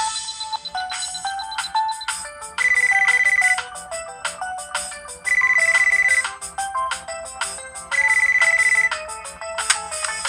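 A default polyphonic ringtone on an LG Rhythm AX585 phone playing a fast electronic melody of many short notes. A loud high tone is held for about a second three times, evenly spaced.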